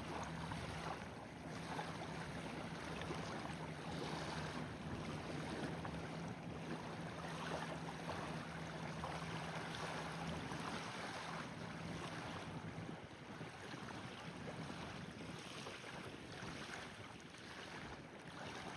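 Steady outdoor noise of wind and water, with a faint steady hum that fades out about two-thirds of the way through.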